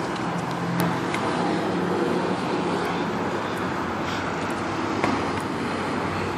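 Steady road-traffic noise with a low engine hum and a few faint clicks.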